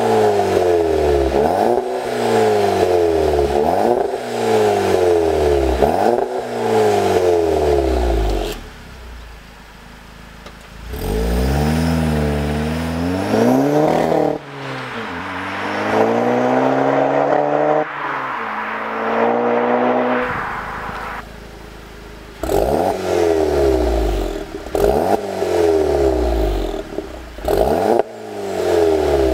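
Volkswagen Golf GTI Mk7's turbocharged 2.0 TSI engine through an aftermarket Baq Exhaust turbo-back exhaust with active valves. With the valves open it gives a string of quick free revs, each rising sharply and falling away. About ten seconds in, with the valves closed, the car accelerates away, and near the end come more open-valve revs.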